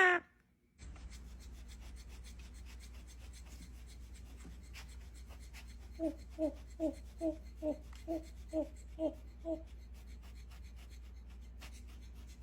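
A bird calling a run of about nine short, low-pitched notes, roughly two and a half a second, starting about halfway through, over a steady low hum.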